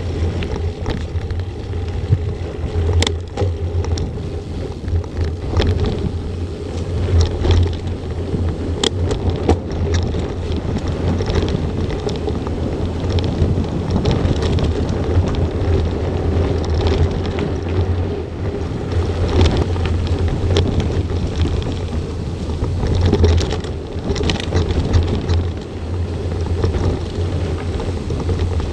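Steady wind rush over the action camera's microphone while a mountain bike rides a dirt trail, mixed with tyre noise on the ground and scattered sharp knocks and rattles of the bike over bumps.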